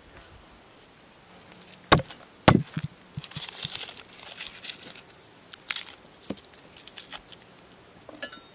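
A head of garlic being broken apart by hand: two sharp cracks about half a second apart as the bulb splits, then papery skins crinkling and small clicks as cloves are pulled off.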